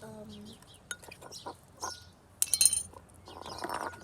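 Small hard objects clinking and tapping against each other several times, the loudest cluster about two and a half seconds in, with birds chirping in the background.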